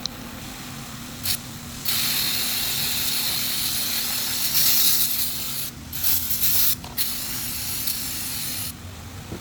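Pressurised spray hissing in bursts: a short puff about a second in, then a long spray, a few quick short ones, and another long one that stops near the end.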